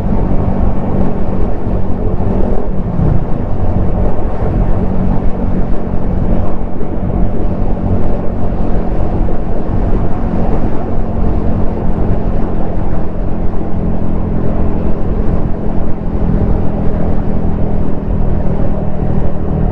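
Yamaha XSR155's single-cylinder engine and exhaust running steadily at cruising speed, heard from the rider's helmet, with wind noise over it.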